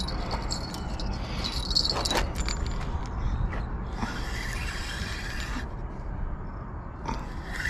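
A spinning fishing reel being cranked, giving an even whir for about a second and a half near the middle, over a steady low rumble, with a few sharp clicks in the first two seconds.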